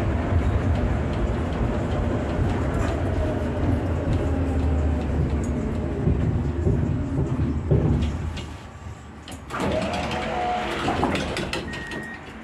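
Tram running along the track with a steady rumble, which dies away about eight seconds in as it slows. Shortly after, there are several clicks and a brief squeal, and near the end a high, evenly repeated beep begins.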